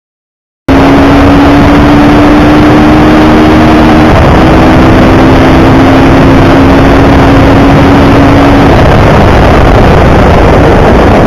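Yamaha FZ25 motorcycle riding at highway speed, heard as loud wind noise on the handlebar microphone that starts abruptly just under a second in. The single-cylinder engine's steady hum runs under it, dips briefly about four seconds in, and fades out near the end.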